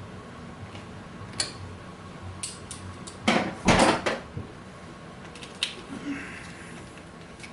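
Hand tools and metal hardware being handled, giving scattered clinks and clicks, with a louder clattering burst of under a second about three seconds in.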